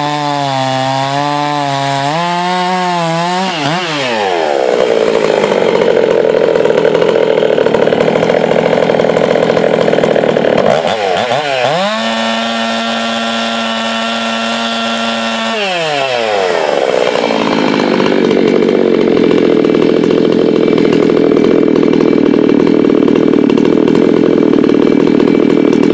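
Modified Husqvarna 390XP 88 cc two-stroke chainsaw (pop-up piston, tightened squish band, advanced timing, unlimited coil, modded muffler, no porting) finishing a cut through a large log, its pitch wavering under load. It then revs up to full throttle out of the wood, drops to a steady lower speed for a few seconds midway, and runs at full throttle again near the end while its top speed is read on a tachometer.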